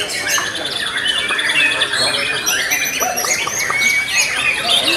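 Many white-rumped shamas singing at once: a dense, continuous tangle of overlapping whistled phrases and rapid notes.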